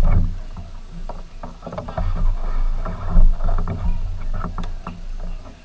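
A kayak hull knocking and shifting against a wooden dock as someone climbs out: irregular sharp knocks and bumps over a low rumble, with water moving against the hull.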